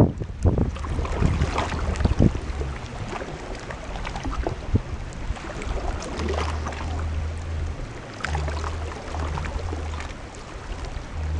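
Wind buffeting the microphone in gusts, as a low rumble, over moving river flood water with scattered small splashes.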